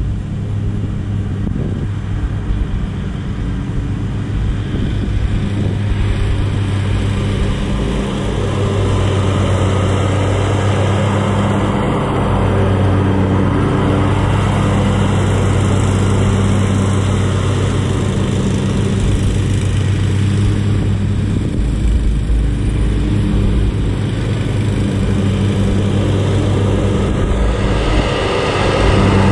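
Commercial lawn mower engines running steadily at mowing speed, a steady low hum that grows louder near the end.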